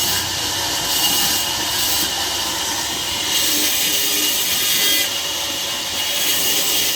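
Saw cutting through a log at a sawmill: a steady, noisy rasp whose high part swells and eases every second or two.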